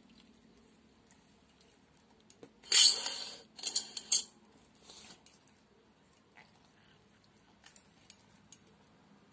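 Stainless steel bowls being handled by hand: two loud, short scraping clatters about three and four seconds in, a softer one just after, then a few faint clicks near the end as a soaked vada is squeezed over the bowl.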